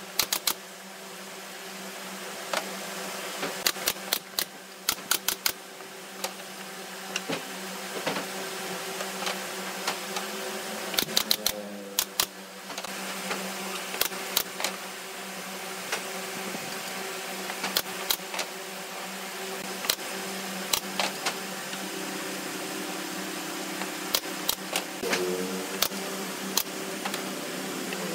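Pneumatic nail gun firing nails into pine pallet slats: sharp cracks, some one at a time and some in quick runs of several, about two dozen in all. A steady low hum runs underneath.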